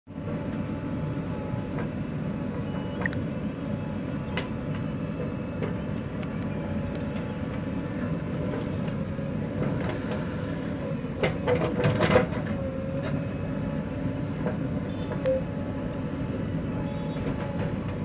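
JCB 3DX backhoe loader's diesel engine running steadily under load with a steady whine while the backhoe arm digs and lifts soil. A burst of clanks and knocks about eleven to twelve seconds in is the loudest moment.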